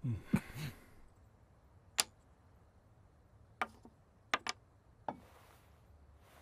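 Wooden xiangqi (Chinese chess) pieces clicking down on a wooden board: about five sharp single clicks spread out, two of them close together about four and a half seconds in. A brief low sound comes at the very start.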